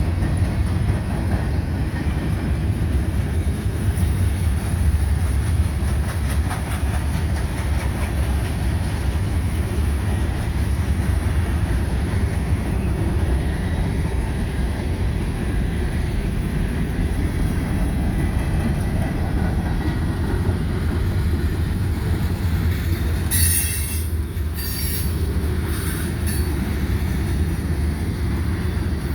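Cars of a mixed freight train rolling past: a steady rumble of wheels on rail with a high wheel squeal throughout. Several short, sharp squeals come near the end.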